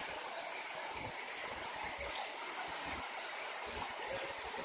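Heavy rain falling steadily, splashing onto wet paving and puddles.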